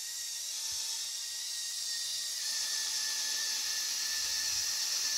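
Electric motors and plastic gears of a motorised Lego Technic model whirring steadily as it drives along, a high, hissing whine with a faint steady tone in it.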